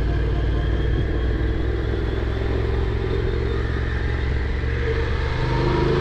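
Honda NC750X's parallel-twin engine running steadily with a low rumble, its pitch climbing slightly near the end.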